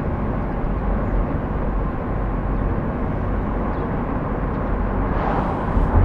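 Car driving along a road: steady engine rumble and tyre noise. Near the end another vehicle passes, briefly louder.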